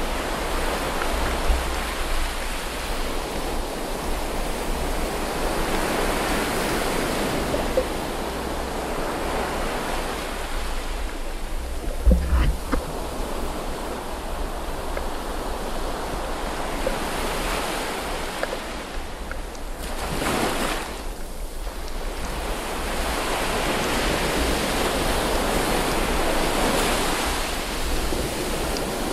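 Steady rushing wash of water heard through an underwater camera housing while snorkelling, swelling and fading slowly, with low rumbling bumps and one heavier thump about twelve seconds in.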